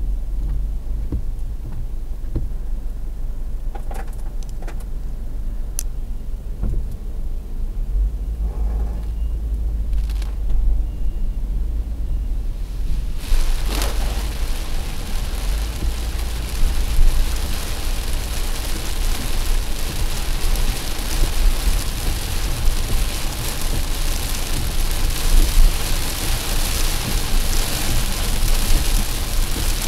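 Heavy rain hitting a car's windshield and roof, heard from inside the car, setting in suddenly about halfway through as a dense steady hiss. Before that, only the low rumble of the car.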